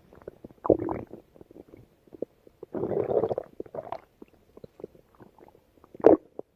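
Stomach growling and gurgling in irregular bursts: a short gurgle about a second in, a longer rumbling gurgle around three seconds, scattered small pops and squelches between, and a sharp gurgle near the end.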